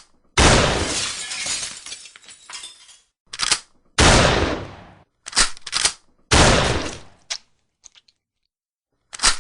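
Shotgun fired three times, each blast trailing off over a second or more. Before each shot comes a quick pair of sharp mechanical clacks as the action is worked to reload.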